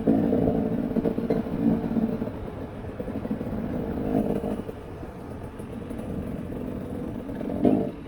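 Off-road vehicle engine revving in bursts and easing off between them, loudest for the first couple of seconds and again near the end, quieter in between.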